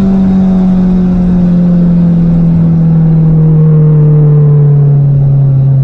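Turbocharged Honda Prelude's four-cylinder engine, heard from inside the cabin, its revs falling steadily and smoothly as the car slows down.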